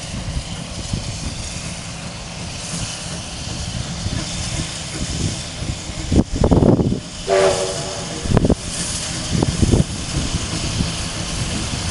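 Steam locomotive working slowly toward the listener: a steady chuffing rumble with the hiss of escaping steam. About seven seconds in the whistle sounds one short blast of about a second, with louder rushes of noise just before and after it.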